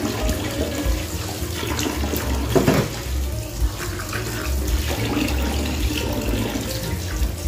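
Tap water running and splashing into a steel basin in a kitchen sink as hands rub and rinse a whole raw chicken under the stream.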